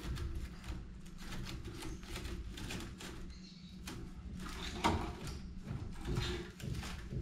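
Woven rattan keba basket backpack being handled. The rattan strands creak and rustle and the frame knocks softly, with one sharper knock about five seconds in.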